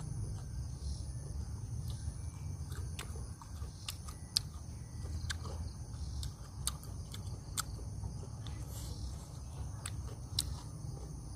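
A person chewing grilled squid, with scattered sharp clicks and smacks, over a steady low rumble and a steady high drone of insects.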